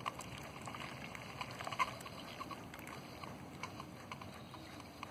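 Keurig K70 coffee maker brewing, faint: its small air pump runs while a thin stream of coffee trickles and splashes into a nearly full mug.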